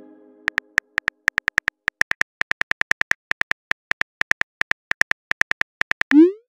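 Phone keyboard typing clicks from a texting app, a fast, uneven run of short taps as a message is typed out, then a quick rising swoosh near the end as the text is sent.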